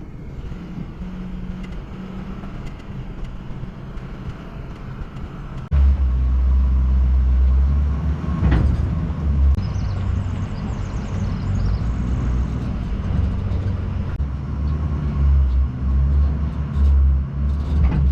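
An engine running steadily. About six seconds in, a heavy low rumble cuts in suddenly and keeps going, swelling and dipping.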